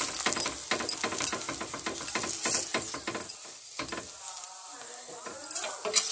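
Oil sizzling and crackling under a stuffed puri frying on a hot tawa, with many sharp clicks and scrapes as oil is spread over it. The crackling thins out after about three and a half seconds.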